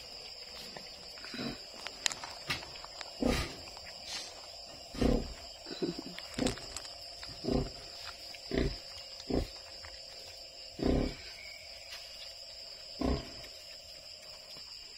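Nursing sow grunting, short low grunts repeated about every one to two seconds while her newborn piglets suckle.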